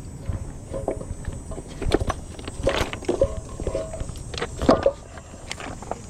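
Irregular knocks, clunks and scrapes of gear being handled against a plastic kayak hull, with a few short squeaks in the middle.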